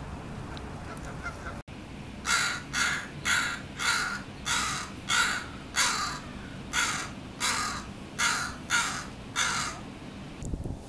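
American crow cawing: a series of about a dozen short caws, roughly two a second, with one brief pause midway.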